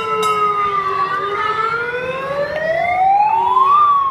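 Fire truck siren wailing: its pitch falls for about a second, climbs slowly for about three seconds, then turns down again near the end.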